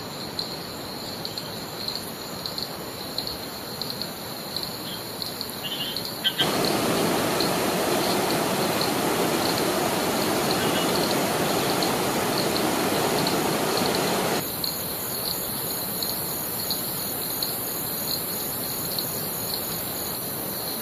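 An insect shrilling steadily at a high pitch with a pulsing texture. From about six seconds in until about fourteen seconds, the rushing noise of a river or waterfall is louder, starting and stopping abruptly.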